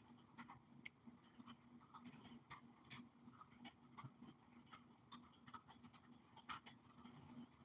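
Near silence: faint, irregular little clicks and ticks over a low, steady hum.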